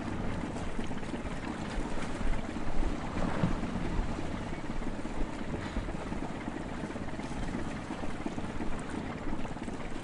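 Sea ambience: a steady rushing of wind and waves, rising and falling slightly in loudness.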